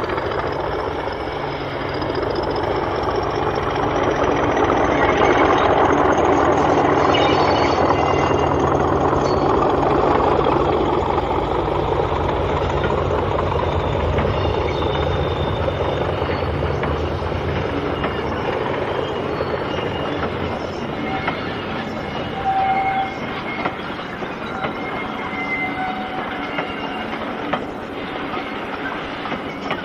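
English Electric Class 40 diesel-electric locomotive, with its 16-cylinder engine, working a train past. The engine drone grows louder over the first few seconds and dies away at about 18 s. After that the wagons' wheels clack on the rail joints, with brief high wheel squeals.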